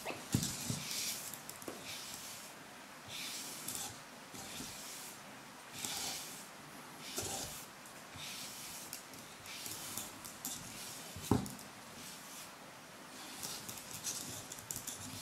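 A hand stroking over the plastic head of an EMO desktop robot, a soft brushing hiss with each stroke, repeated every second or so. One sharp tap stands out about three quarters of the way through.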